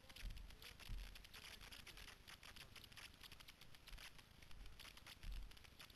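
Near silence with faint crackling and a few dull low thumps from a camera carried on the move: footsteps and handling noise.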